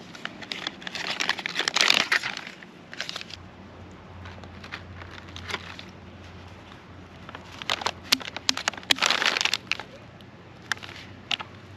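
Plastic MRE flameless ration heater bag crinkling as it is opened and unfolded by hand, in two spells of handling with a quieter stretch between them and a couple of short crackles near the end.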